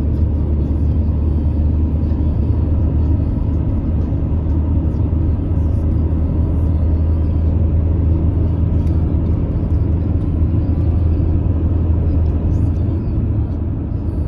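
Steady low rumble of a car cruising on an open road, heard from inside the cabin: engine and tyre road noise.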